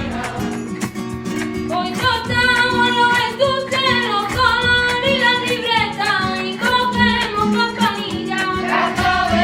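Singing of a Christmas carol in a flamenco style, with guitar accompaniment and a steady rhythm.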